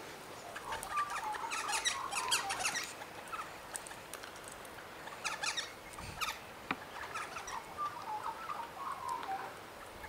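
Birds chirping and chattering in three bursts of quick high chirps mixed with short clearer notes.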